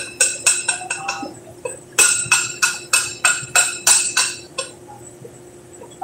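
Hammer blows on steel at a steam boiler's manhole, quick ringing strikes about four a second, in two runs with a short pause between, stopping about four and a half seconds in.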